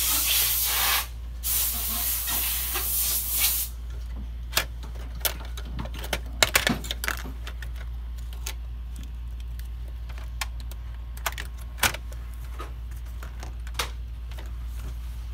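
Two bursts of hissing spray, about one and two seconds long, near the start. Then a scatter of light clicks and knocks as a PS4 power supply board is lifted and its connection reseated.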